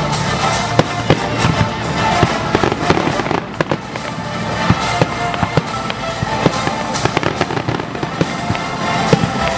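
Aerial fireworks shells launching and bursting in quick succession, many sharp bangs and pops, with music playing underneath.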